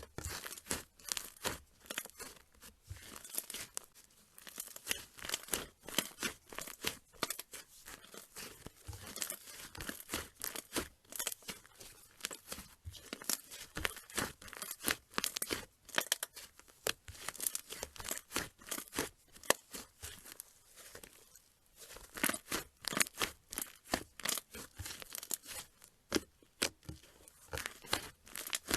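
Slime being squeezed, poked and stretched by hand, giving rapid, irregular crackling and popping clicks.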